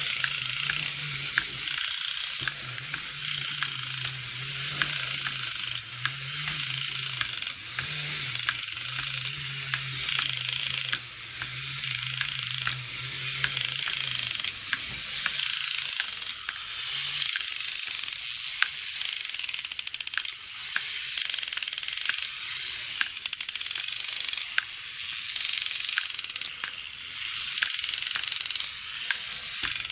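Marx 1960s tin wind-up mechanical gorilla running on its spring motor: the rasping clicking, gurgling growl mechanism works steadily while the jaw opens and closes, with regular clicks about two a second.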